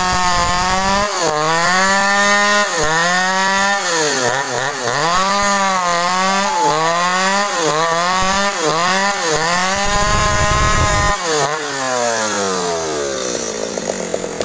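Stihl two-stroke chainsaw at full throttle cutting sengon wood, its pitch dipping again and again as the chain bogs in the cut and then recovering. About eleven seconds in the throttle is let off and the engine winds down to idle.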